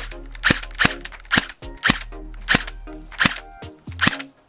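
Tokyo Marui electric airsoft pistol firing single shots, one sharp crack about every half second, with about half a dozen shots in all. Background music plays underneath.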